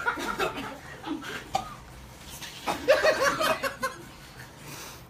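A group of people laughing and snickering in short bouts, with the odd half-spoken word among them.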